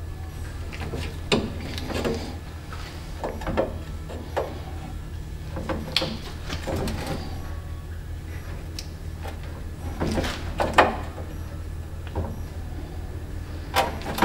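Side cutters snipping small notches into the aluminum edge of an aftermarket radiator: irregular sharp clicks and snaps with handling rattles between them, over a steady low hum.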